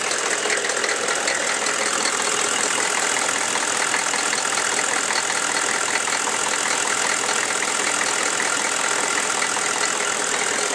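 Chevy 6.5-litre V8 diesel idling warm, with a steady little knocking in its running. The owner takes the knock, which comes once the engine warms up, for a valve or rocker arm needing adjustment.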